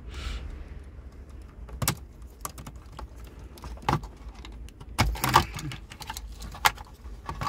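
Irregular plastic clicks and snaps of wiring-harness connectors being unlatched and pulled out of a Mercedes-Benz ML rear SAM control module, with a cluster of clicks about five seconds in.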